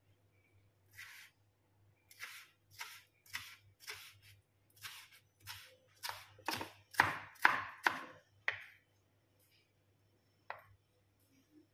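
Kitchen knife chopping tomato on a wooden cutting board: a run of sharp dicing strokes about two a second, loudest in the middle, then a single knock of the blade on the board near the end.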